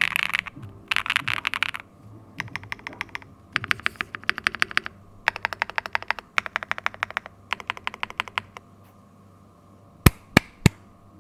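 Mechanical keyboard with linear switches (Neo80 CU, Pantheonkeys TSIC switches, PBT keycaps, aluminium plate, gasket mount) being typed on: fast dense typing, then several short runs of rapid, evenly spaced keystrokes. Three louder single clacks come near the end.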